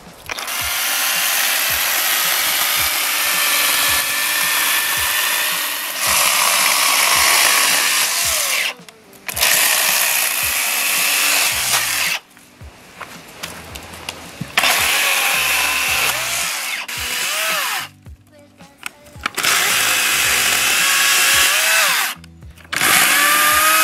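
Cordless battery-powered Redverg electric chainsaw cutting through branches for firewood, running in about five bursts of a few seconds each with short stops between them. Its motor whine rises as it spins up and falls away as it stops.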